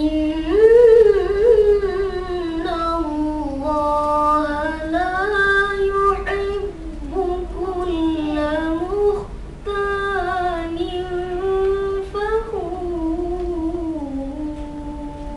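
A boy's voice chanting Quran recitation (tilawah) in long, melodic held phrases with ornamented pitch turns, through a microphone. There is a short breath about nine and a half seconds in, and the phrase ends just before the close.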